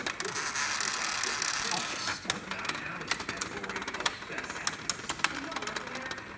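Small battery-powered vibrating toy bug buzzing and rattling as it skitters across a plastic arena floor, with frequent sharp clicks as it knocks against the plastic walls and posts.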